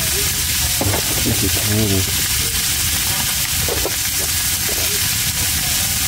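Salmon frying in a pan: a steady sizzle.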